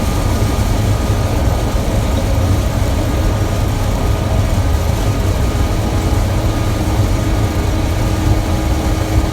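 Gleaner M2 combine running steadily while harvesting soybeans, heard from inside the cab: a steady low engine and machinery drone. A faint steady tone joins about six and a half seconds in.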